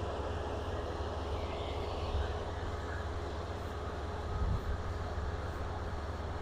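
Kubota rice combine harvester running steadily as it works the field: a constant engine drone with a steady whine over it.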